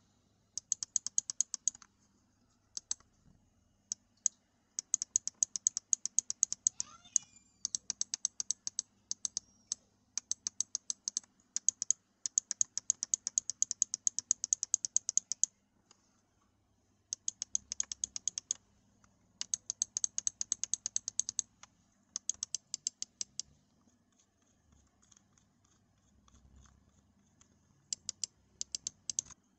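Black Shark Mako M1 gaming mouse's scroll wheel being rolled by a finger: fast runs of notched clicks, many ticks a second, in spurts of one to three seconds with short pauses between.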